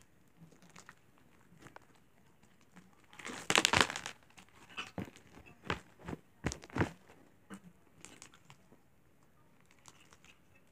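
Pink slime being squeezed and kneaded by hand, giving scattered small pops and crackles, loudest in a cluster a few seconds in.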